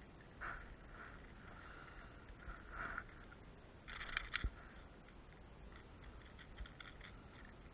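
Faint handling noise as a hooked lure is worked free of a pike in a landing net: soft rustling and scraping, with a quick cluster of small metallic clicks and a light knock about four seconds in.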